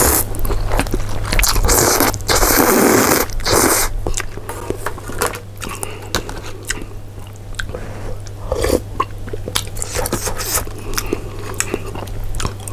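A person slurping snail rice noodles in long noisy draws for the first few seconds, then chewing, with small clicks and scrapes of chopsticks and a metal spoon in the plastic bowl.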